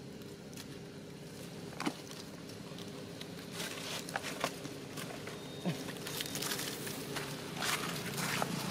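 Dry leaves crackling and rustling as a long-tailed macaque handles them and then steps across leaf litter: scattered sharp crackles, sparse at first and busier from about halfway through.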